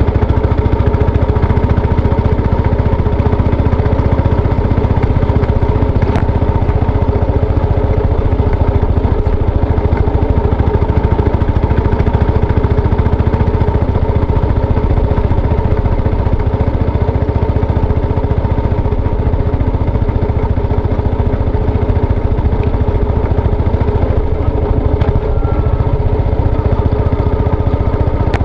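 Yamaha SR400's air-cooled single-cylinder engine running steadily at an even pitch, with a heavy low rumble underneath.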